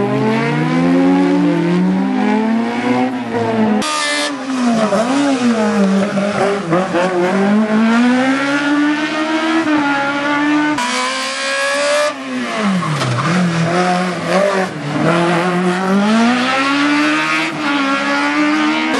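Racing car engine revving hard and falling back again and again as it accelerates and lifts through a slalom course. The sound breaks off abruptly a few times, about 4 and 11 seconds in.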